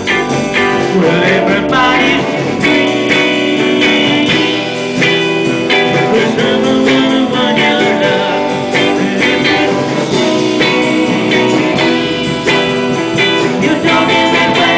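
Live band playing loudly: electric guitars, drums and a lead singer.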